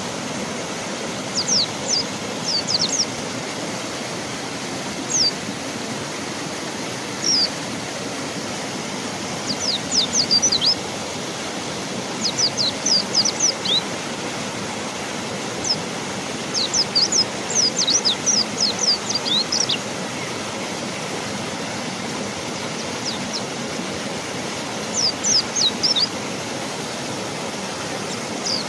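Rushing river water, a steady hiss, with a mountain white-eye calling over it in quick runs of short, high, falling chirps that come every few seconds.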